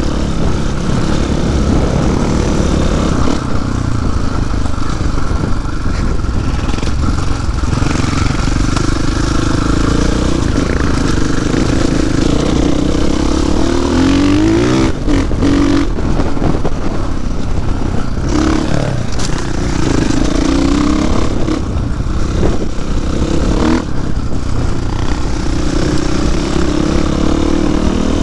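KTM 500 EXC-F single-cylinder four-stroke dirt bike engine running on the move, its pitch rising and falling with throttle and gear changes, with a clear climb in revs about halfway through. Steady wind and trail noise rush over the bike-mounted microphone throughout.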